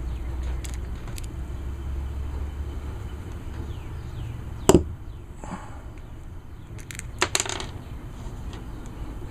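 Small metallic clicks and taps as carburetor cover screws and parts are handled and set down during disassembly. The loudest is a sharp click about halfway through, with a few more near the end, over a low rumble of wind on the microphone.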